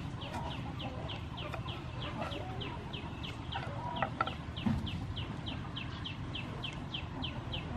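Chickens: a chick peeping in a steady run of short falling peeps, about three to four a second, with hen clucks underneath. A few knife knocks on a wooden chopping block sound about four seconds in.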